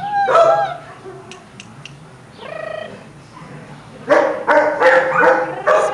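Chihuahua puppy yapping: a short high call near the start, another around the middle, then a quick run of about six sharp, high yaps in the last two seconds.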